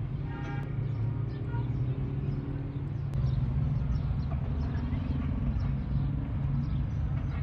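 Steady low background rumble, with one short high-pitched kitten mew about half a second in.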